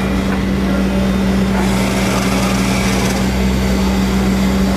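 Excavator's engine running steadily, with a constant droning hum, as it works a tiltrotator and grab.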